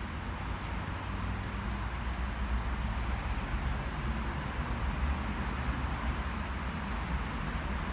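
Steady low engine rumble under even outdoor background noise, with no knocks or rhythm.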